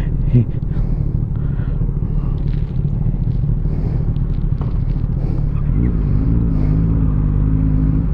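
Motorcycle engine idling with a steady low rumble; about six seconds in, a steadier pitched engine hum joins it.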